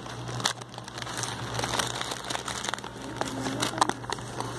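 Phone microphone rubbing and bumping against a knitted sweater: an irregular run of rustles, crackles and clicks of handling noise, over a steady low hum.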